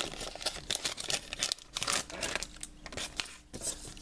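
Foil Pokémon booster pack wrapper being torn open and crinkled, a dense run of crackling tears for about two and a half seconds, then lighter rustling.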